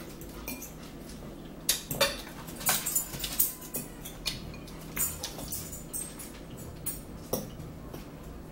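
Metal forks clinking and scraping on a ceramic plate and salad bowl in short irregular ticks, along with close-up chewing and mouth sounds of eating.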